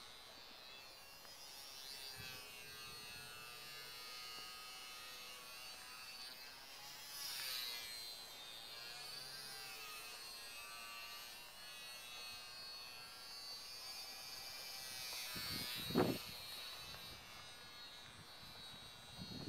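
HobbyZone Champ RC plane's small electric motor and propeller buzzing faintly overhead, a thin high whine that wavers up and down in pitch as the plane flies past. A brief thump about sixteen seconds in.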